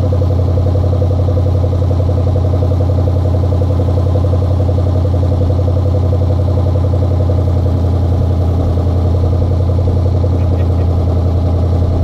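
Rover P6's 3.5-litre aluminium V8 engine, out of the car, idling steadily at an even speed.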